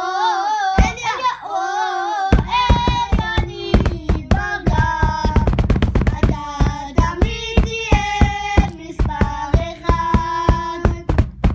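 Children singing a song together, with held and wavering notes, over sharp percussive hits that keep a rough beat.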